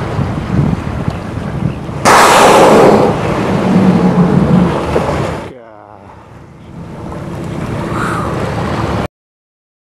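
Wind and sea noise, then a sudden loud whooshing rush about two seconds in as a blue whale surfaces and blows close to the boat. The rush stays loud for about three seconds and then fades. The sound cuts off abruptly near the end.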